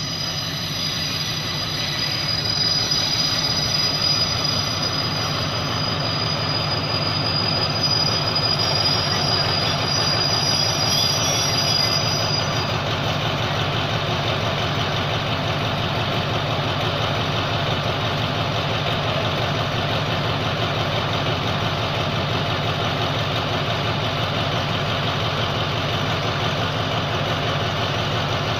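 Diesel-electric locomotive pulling a passenger train in and braking to a stop, with a steady high squeal that cuts off about twelve seconds in. Its diesel engine then idles steadily.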